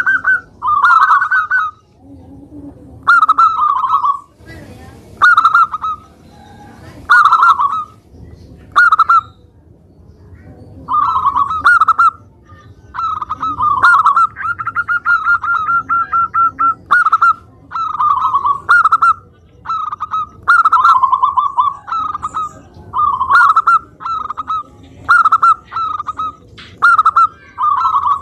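Zebra dove (perkutut) cooing: short trilling phrases repeated about every one to two seconds, with a longer rapid stuttering run of notes around the middle.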